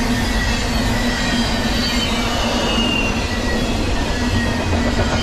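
Double-stack intermodal container cars rolling past: a steady, loud rumble of steel wheels on rail, with thin, faint high-pitched wheel squeals over it.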